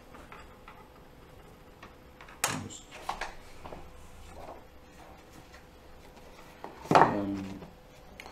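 Large sheets of card and mat board being handled on a wooden table: a few light clicks and rustles, with a louder knock about two and a half seconds in and a louder scrape about seven seconds in.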